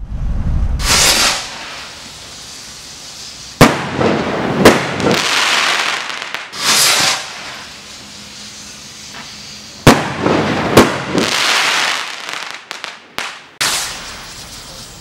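Gemstone Fireworks Double Impact double-break rockets launching with a whoosh, one after another. A few seconds after each launch comes a loud bang, then a second bang about a second later as the secondary shell bursts. This double bang is heard twice clearly, with crackling hiss between the bursts.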